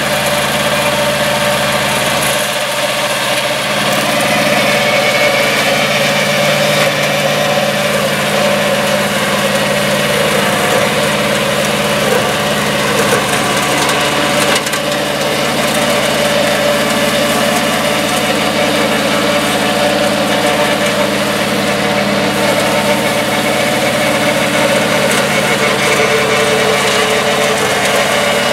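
Two-cylinder 954 cc, 22 hp diesel engine of a rubber-tracked mini crawler tractor running steadily under load, driving a Zanon TML 115 flail mower through tall grass and brush. The mower adds a continuous chopping noise over the engine's steady note.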